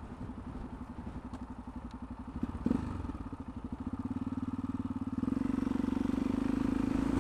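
Yamaha XT660X's single-cylinder four-stroke engine running with an even pulsing beat. There is a short thump about two and a half seconds in, and the engine grows louder from about five seconds in.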